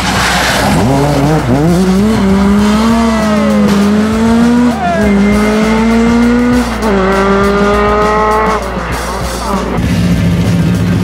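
Ford Escort Mk2 rally car's engine revving hard as it accelerates away, the pitch climbing in each gear and dropping at gear changes about five and seven seconds in. The engine sound stops near the end, and music follows.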